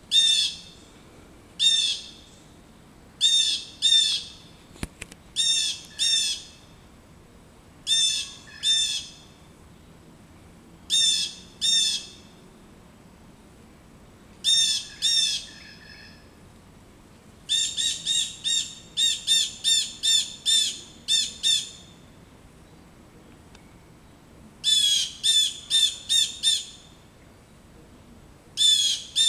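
Blue jays giving harsh, repeated jeer calls, mobbing a perched osprey. The calls come singly or in pairs every second or two, then in a fast run of about a dozen a little past the middle, and in another run near the end.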